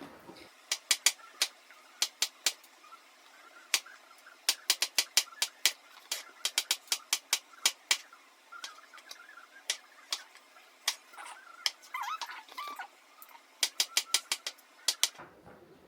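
Knife slicing mushrooms on a cutting board: irregular sharp taps of the blade hitting the board, in quick runs of several a second with short pauses between.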